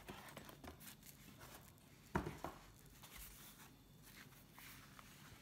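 Faint rustling and handling noise as the folded canvas solar panel is lifted out of its cardboard box, with a sharp knock about two seconds in and a lighter one just after.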